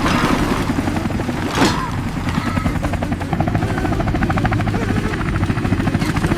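Animated helicopter sound effect: a fast, even rotor chop over a low rumble. A short falling whoosh comes about one and a half seconds in.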